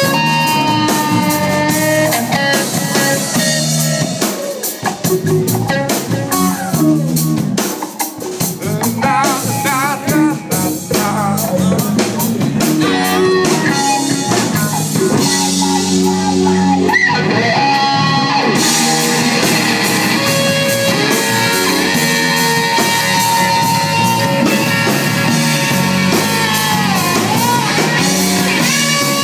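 Live rock band playing loud: electric guitar over electric bass and a Ludwig drum kit, with wavering, bent notes about nine to eleven seconds in.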